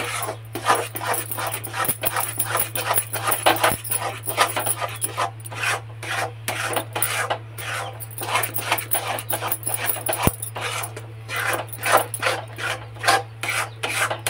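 Metal spatula scraping and stirring a thick, sticky sugar-and-flour mixture in an aluminium kadhai, in quick repeated strokes several times a second, over a steady low hum.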